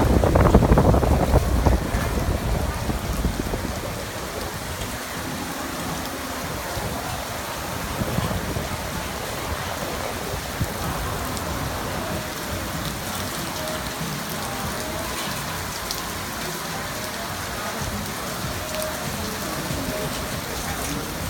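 Steady rain falling, a continuous even hiss, with a loud low rumble over the first few seconds that fades away.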